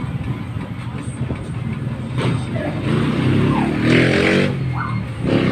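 A motor vehicle's engine running with steady low rumble, getting louder about two seconds in, with a couple of brief rising notes.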